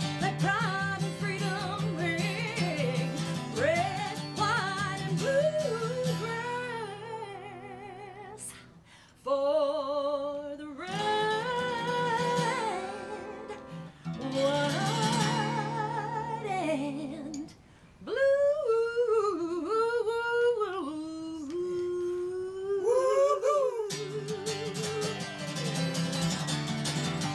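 A woman singing with a wide vibrato on long held notes, backed by a strummed acoustic guitar. The music dips briefly three times, about 8, 14 and 18 seconds in.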